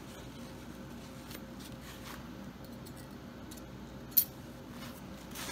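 Small metal combination-lock parts clicking as they are handled and set down, with one sharp click about four seconds in, and soft paper-towel rustling.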